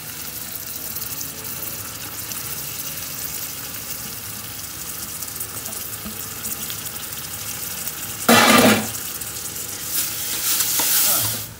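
Chopped onions and garlic frying in ghee in a steel pot, a steady sizzle, with a ladle stirring. A loud, brief clatter comes about eight seconds in.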